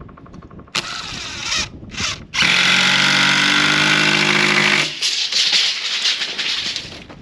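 Cordless impact driver driving a screw into a wooden sill plate: two short bursts, then a steady run of about two and a half seconds before it stops.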